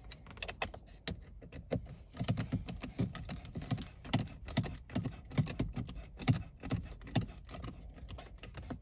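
Hand screwdriver turning a screw into the plastic center-console trim of a car, a run of rapid, uneven clicks.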